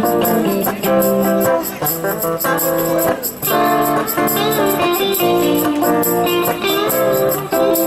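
A small live band playing with electric and acoustic guitars, a run of plucked guitar notes over a steady strummed accompaniment.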